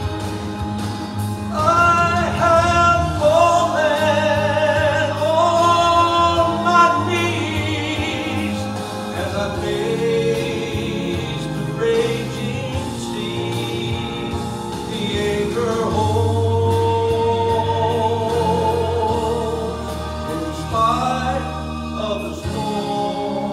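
A man singing a gospel song through a handheld microphone over instrumental accompaniment, holding some notes with a wavering vibrato.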